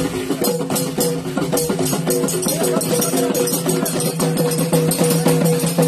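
Moroccan hiti folk music played live: fast, dense hand percussion over a sustained melodic line held on a few steady pitches.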